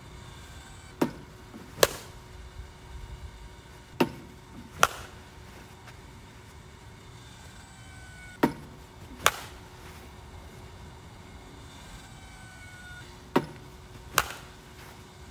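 Four pairs of sharp hits: in each, a knock as a softball is launched toward the batter, then under a second later the louder crack of a composite slowpitch softball bat striking the ball.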